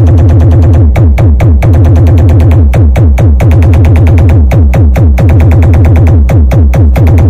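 Bass-heavy electronic dance music played very loud through a mobile sound system's speaker stack. It has a fast drum-machine beat and short tones that drop in pitch, over a constant deep bass.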